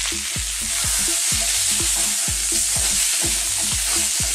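Sweet potato chunks sizzling in hot oil in a wok on high heat, with a wooden spatula tossing them near the end. A steady beat of background music thuds underneath, about four beats a second.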